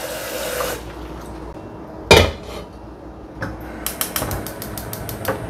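Metal cookware clattering in a kitchen: one loud clank of a pan or lid about two seconds in, then a quick run of sharp metallic clicks near the end.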